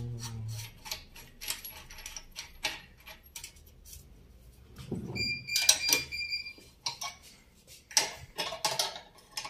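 Hand tools working the threaded screw of a steel bushing extractor: a run of irregular metal clicks, a ringing metallic clink about five seconds in, then more clicks near the end.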